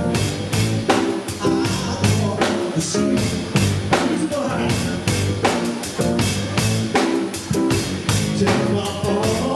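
Band music with drum kit, bass and guitar playing a steady beat, with some singing.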